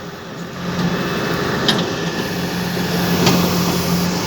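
An engine running steadily, with a couple of short sharp knocks about a second and a half in and again past three seconds.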